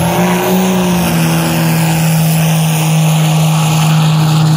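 Cummins 12-valve inline-six turbo diesel in a jet boat running hard at full throttle: a steady, deep engine drone over the rush of water and spray.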